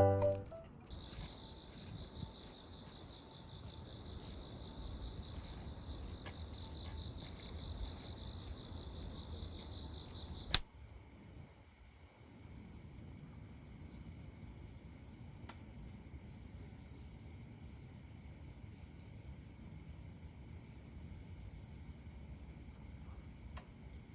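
Insects shrilling outdoors: a loud, steady high-pitched chorus that cuts off abruptly about ten seconds in, followed by quieter insect chirring that pulses roughly once a second.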